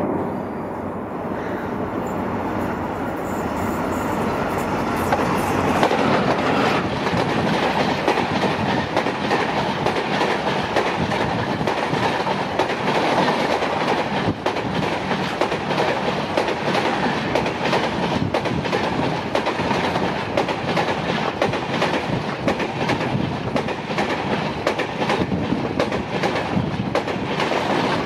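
Passenger train of LHB coaches running past close by: a steady rumble with a rapid, continuous stream of wheel clicks over the rail joints. It grows louder from about six seconds in.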